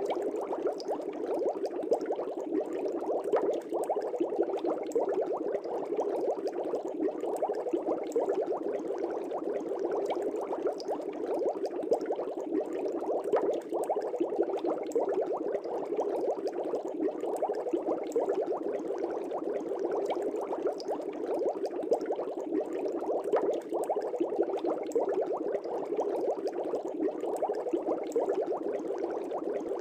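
Aquarium water bubbling steadily: a dense, continuous stream of air bubbles with many small pops, without let-up.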